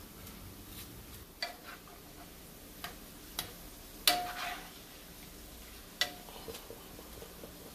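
Thin potato slices sizzling quietly in hot vegetable oil in a frying pan, with sharp clicks of metal tongs against the pan as the chips are turned. There are about five clicks, the loudest about four seconds in and another about six seconds in, each of those two with a short metallic ring.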